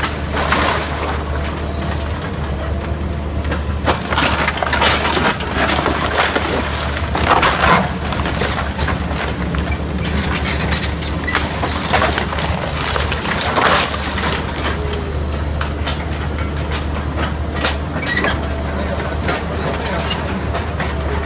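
Link-Belt 160X tracked excavator's diesel engine running steadily as its bucket tears into a wood-framed house. Repeated cracks and crashes of breaking wood and falling debris sound over the engine.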